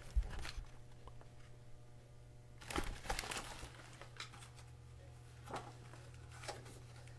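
Faint rustling of a picture book's paper pages being handled and turned, a few soft rustles and ticks, the clearest about three seconds in, over a steady low hum.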